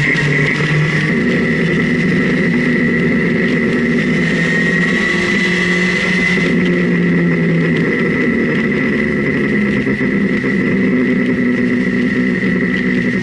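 Sport motorcycle engine running at steady road speed, its pitch rising and falling a little with the throttle through the bends, with wind noise.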